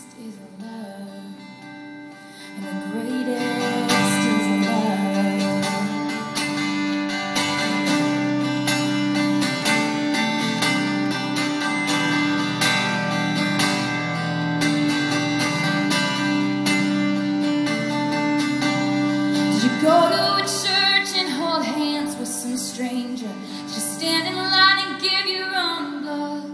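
Solo acoustic guitar strummed steadily in an instrumental passage of a country ballad, getting louder about three seconds in. Near the end a woman's voice sings over the guitar.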